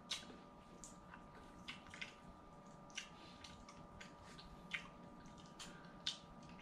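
Quiet eating sounds: scattered small clicks and wet smacks, one or two a second, over a faint steady hum.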